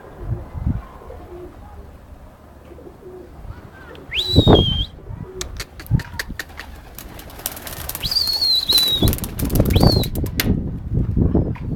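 Pigeons flapping their wings in a flurry of sharp wing claps lasting several seconds, with three short high whistles, about four, eight and ten seconds in.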